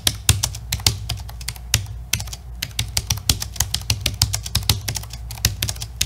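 Fast typing on a laptop's thin mechanical-switch keyboard: a quick, irregular run of sharp key clicks.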